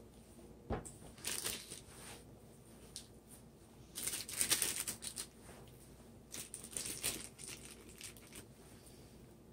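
Clear plastic food bag crinkling and rustling in several irregular bursts as pieces of raw beef are handled and dropped into it, with a dull thump just under a second in.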